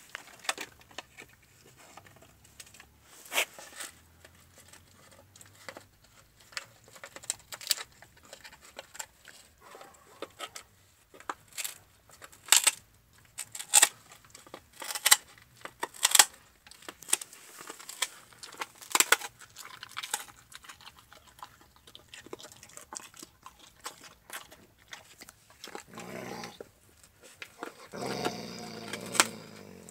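Alaskan malamute gnawing a raw meaty bone: irregular sharp crunches and cracks of teeth on bone, with a longer rough noise near the end.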